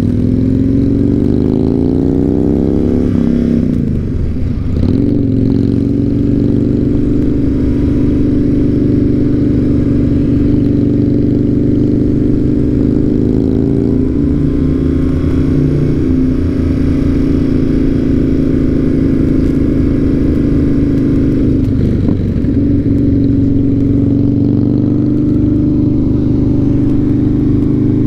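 BMW R100's air-cooled boxer twin engine pulling away, its pitch rising for the first few seconds, then running at a steady pitch while cruising, with short breaks at gear changes about four seconds in and again around twenty-two seconds.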